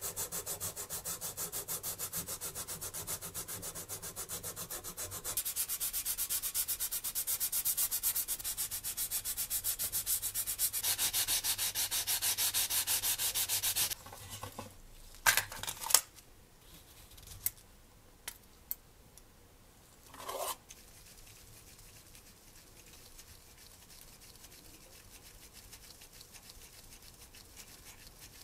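Hand sanding of a plastic scale-model car body's wheel arch: fast, even rubbing strokes that grow louder partway through and stop about halfway. A few sharp clicks and rattles follow as a metal tin of micro twist drills is opened and handled, then only faint sound while holes are drilled by hand with a pin vise.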